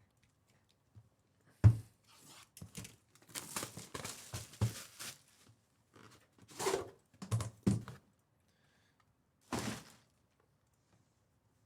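Hands opening and handling a trading-card box: a sharp thunk about 1.7 s in, a few seconds of rustling packaging, then more knocks and a short swish near the end.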